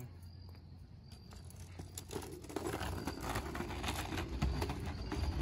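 Kick scooter wheels rolling over a concrete sidewalk as a child pushes off and rides: a rumbling hiss with scattered clicks that grows louder from about two seconds in.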